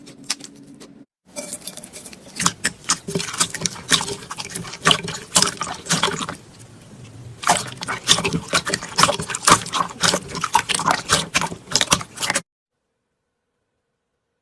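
Slime being squeezed and worked by hand, giving dense, irregular sticky crackling and popping clicks. The sound eases briefly about halfway through and stops abruptly about two seconds before the end.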